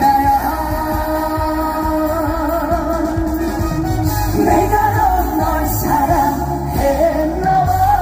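A male trot singer singing live with vibrato over loud amplified band music, heard through the concert sound system.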